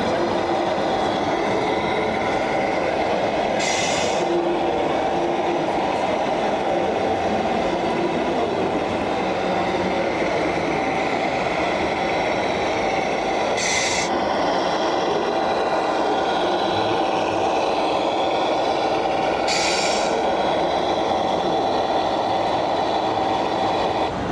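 Steady engine drone from the sound modules of radio-controlled model trucks, with three short hisses about 4, 14 and 20 seconds in.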